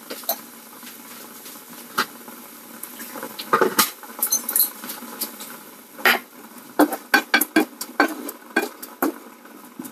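Wooden spoon knocking and scraping against a non-stick wok as vegetables are stirred: a run of quick clacks, two to three a second, through the second half. Before that, a few scattered clinks over a steady hiss.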